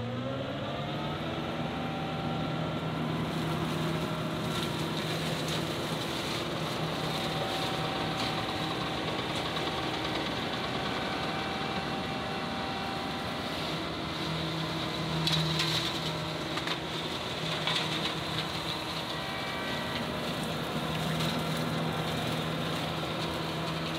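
John Deere 2038R compact tractor's three-cylinder diesel running under load while driving a flail mower through tall brush. The engine revs up in the first second, then holds a steady high speed. Past the middle come a few louder, rougher bursts as the mower chews into thicker growth.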